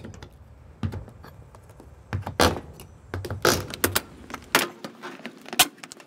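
Old wooden doorstop being pried off a garage door frame with a hammer claw and a nail puller: irregular knocks, scrapes and metal clinks as the wood and nails are worked loose.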